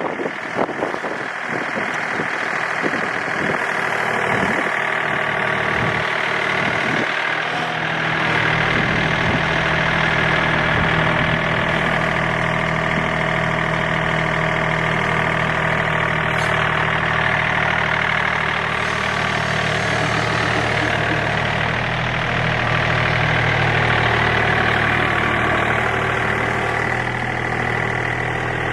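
John Deere 2032R compact tractor's three-cylinder diesel engine running. It is uneven with irregular knocks for the first several seconds, then settles into a steady run from about eight seconds in.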